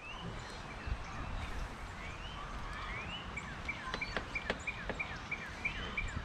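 A songbird singing: several rising whistled notes, then a run of short, evenly repeated notes about three a second, over steady background noise with a few faint clicks.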